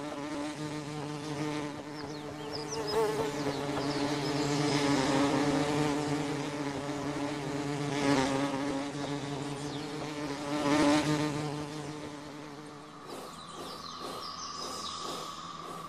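Flying insects buzzing in flight: a steady, low, droning wing buzz that swells and fades as they pass close. About thirteen seconds in it drops away and a thinner, higher tone takes over.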